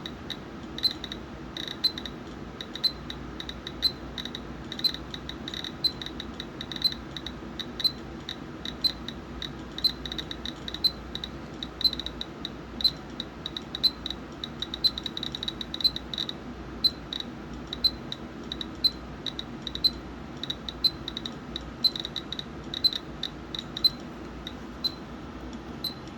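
Geiger counter clicking at random, a few counts each second, as its Geiger-Müller tube picks up radiation from a smoke detector's americium-241 source. Each count is a short, high click.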